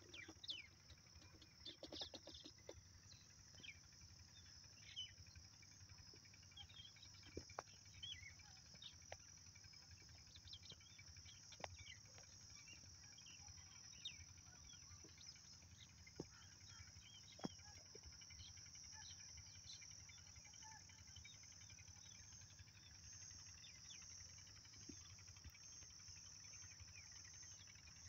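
Faint countryside ambience: a steady high-pitched insect trill, with scattered short bird chirps and a few sharp clicks.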